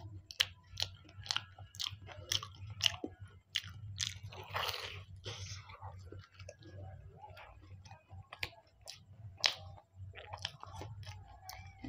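Close-miked chewing of a fried samosa, with many sharp wet mouth clicks and crackles of pastry. A longer crunching bite comes about four seconds in.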